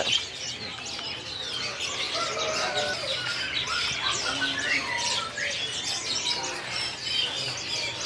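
Many small caged finches and other songbirds chirping and twittering over one another in a dense, steady chorus of short high calls.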